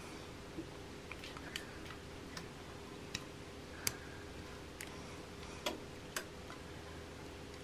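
Irregular light clicks and clinks of a kitchen utensil against a pot, some with a short metallic ring, as hot lemon pie filling is scraped out of the pot into the pastry shell. A faint steady hum runs underneath.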